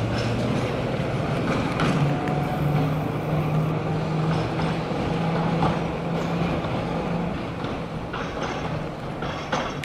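KTM tram running away along the track, a steady low hum with a few sharp clicks, fading slightly toward the end as it draws off.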